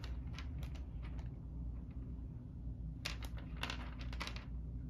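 Light clicks and clatter of small plastic game figures being handled, a few in the first second and more in short bunches from about three seconds in, over a low steady hum.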